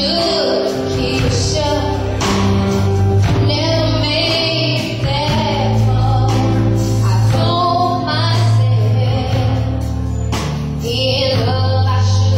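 Two women singing an R&B song live over band accompaniment, with a steady bass line and drums under the voices.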